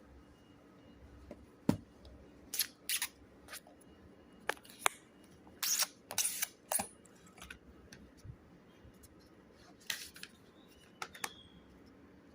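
Hands handling a smartphone's retail packaging: scattered sharp clicks and taps with short scraping rustles, clustered in two busy stretches.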